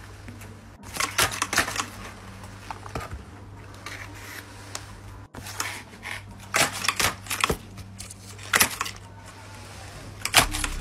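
Stiff paper being handled, crinkling and snapping in irregular clusters of sharp clicks, over a faint low steady hum.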